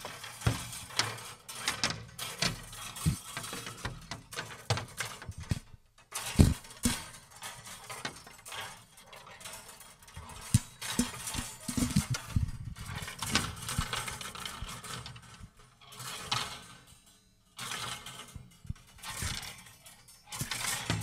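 Wire coat hangers clattering and jangling against one another in a long run of irregular clinks and rattles. There are short breaks about six seconds in and again after about seventeen seconds, and the loudest strike comes just after the first break.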